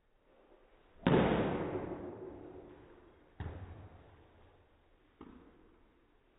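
A baseball bat striking a ball off a batting tee: one sharp crack about a second in that rings and fades over about two seconds. Two quieter, shorter knocks follow, one near the middle and one near the end.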